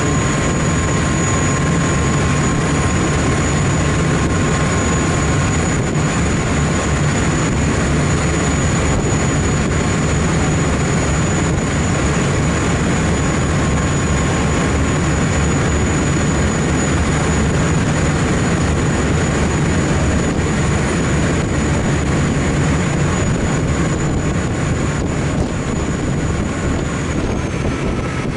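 Passenger river-bus running under way: a steady, loud low engine rumble mixed with the rush of water along the hull, over a thin high whine. Near the end the whine dips slightly in pitch and the noise eases a little.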